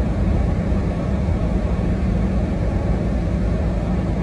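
Steady low rumble of a car on the move, heard from inside the cabin: engine and tyre noise on a snow-covered street.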